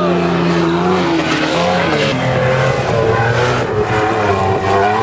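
A 4x4 SUV's engine revving hard under load as it drives across a sand dune, its note rising and falling, with the tyres churning and spraying sand.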